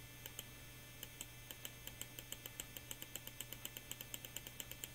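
Computer mouse scroll wheel ticking: a faint, steady run of small, evenly spaced clicks, about five a second.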